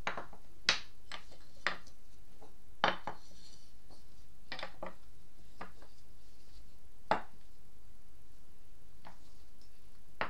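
Small wooden toy animals being set down and shifted on a cloth-covered tabletop: about a dozen sharp, irregular wooden knocks and clicks, with the loudest a little under a second in, just under three seconds in and about seven seconds in.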